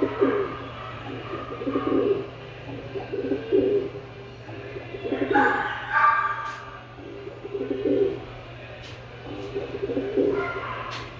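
Pet pigeon cooing over and over, one low coo about every two seconds. A few sharp clicks and some higher-pitched sounds come in around the middle and near the end.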